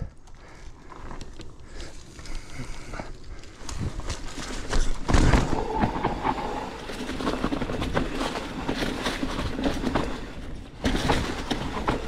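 Mountain bike riding down a loose dirt trail: steady tyre noise on the loose surface with rattling and knocks from the bike over bumps, and a heavier jolt about five seconds in.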